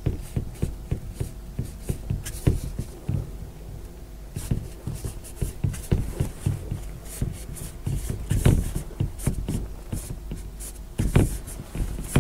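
Felt-tip marker tapping and scratching against a board in many short, irregular strokes as digits are counted off and written.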